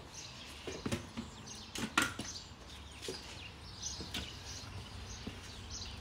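A small child's footsteps and kick scooter on a doorstep and tarmac driveway: a few light knocks and scrapes, the sharpest about two seconds in, over faint outdoor background noise.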